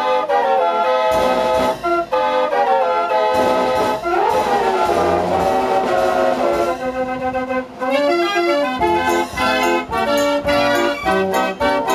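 A 54-keyless Dean fair organ playing a tune on its pipes, brassy and loud, with notes that swoop upward near the start and again about four seconds in. From about eight seconds the melody turns into a quicker, choppy run of short notes.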